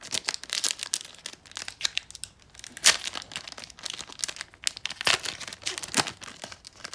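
Foil wrapper of an Upper Deck hockey card pack being torn open and crinkled by hand: a run of sharp crackles, with louder ones about three, five and six seconds in.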